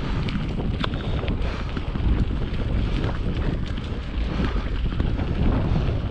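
Wind buffeting the microphone, a steady low rumble with a few faint ticks over it.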